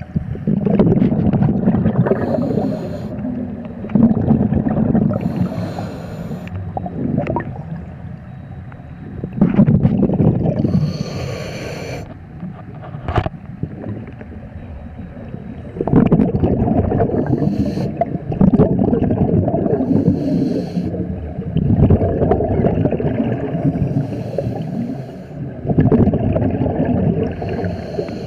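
Scuba diver breathing through a regulator underwater: a short hiss on each inhale, then a long rumbling, gurgling burst of exhaust bubbles, repeating about every three to six seconds. A single sharp click about halfway through.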